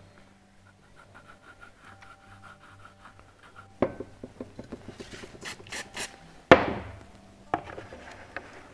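Handling sounds of gluing small plywood frame parts on a workbench: wooden pieces rubbing and clicking against each other, a few brief high hissy bursts about five to six seconds in, and a sharp knock about six and a half seconds in, the loudest sound.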